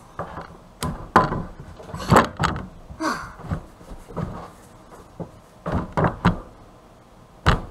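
An old white drop-in kitchen sink being set into the cutout of a wooden countertop: a string of separate knocks and clunks as it is lowered, shifted and pressed into place.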